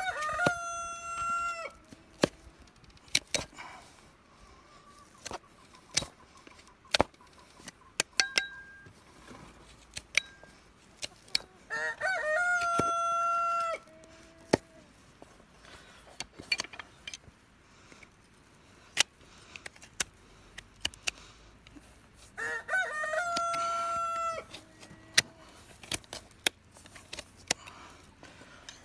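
A rooster crows three times, each crow about two seconds long and some ten seconds apart. In between come sharp short clicks and snaps of a hoof knife paring a horse's hoof sole.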